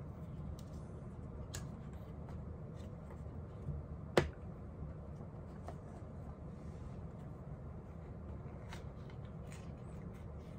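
Quiet room tone: a steady low hum with scattered faint clicks and one sharp click about four seconds in.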